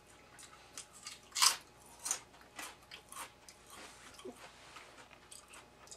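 A person biting and chewing potato chips: a run of short, crisp crunches, the loudest about a second and a half in, then fainter chews that thin out.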